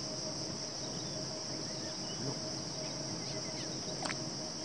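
Steady high-pitched insect chorus, with a single sharp tick about four seconds in.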